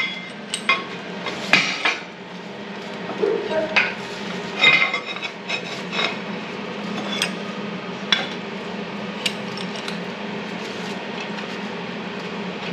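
Metal clanking and knocking at irregular intervals, about a dozen sharp strikes, over a steady hum: steel workpieces and tools being handled on a workshop bench.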